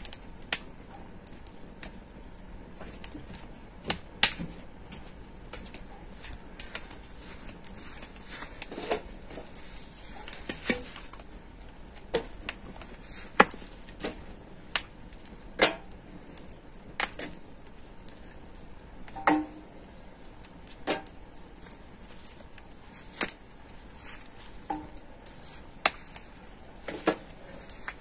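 Wood fire crackling in a metal mangal, with sharp, irregular pops every second or two over a faint hiss.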